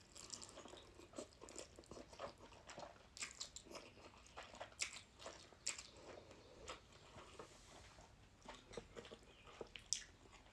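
Faint mouth sounds of a person eating noodles close to the microphone: chewing with many small wet clicks and smacks at an uneven pace.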